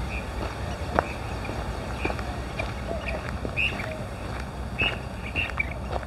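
Birds calling in short repeated notes from the brush, over wind rumbling on the microphone, with footsteps crunching on a gravel trail.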